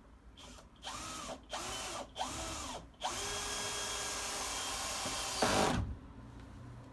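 Power drill squeezed in three short pulses, its motor whining up and falling back each time, then run steadily for about three seconds, loudest just before it stops.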